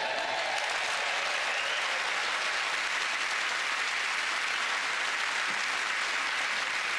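A studio audience applauding steadily.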